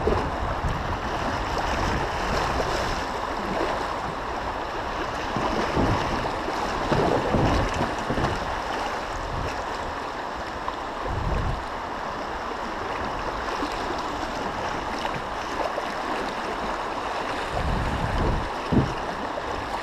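Shallow river rapids rushing and splashing steadily around a kayak, with a few low rumbles of wind on the microphone.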